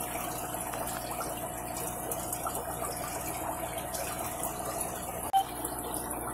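Steady trickle and splash of aquarium water running, as from filter outflows in a fish room, with a faint steady hum under it. A single brief knock about five seconds in.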